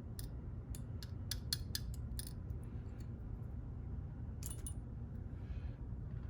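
Small metal tools clicking and clinking, a quick run of about ten sharp clicks in the first two seconds and a couple more about four and a half seconds in, over a steady low hum.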